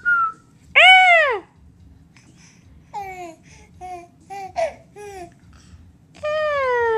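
A baby's high-pitched squeals and babbling: one rising-and-falling squeal about a second in, a string of short falling squeaks in the middle, and a long squeal that slides down in pitch near the end.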